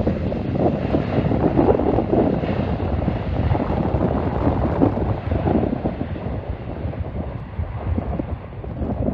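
Jet airliner engine noise mixed with wind buffeting the microphone, a dense low rumble that rises and falls in gusts.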